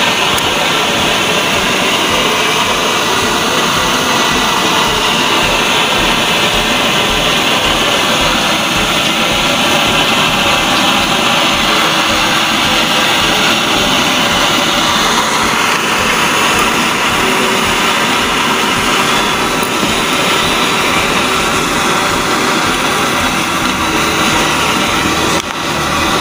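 Jet alcohol stove burning at full output, a steady hiss from its vapour jets as it heats a pot of water at a rolling boil. The sound dips briefly about a second before the end.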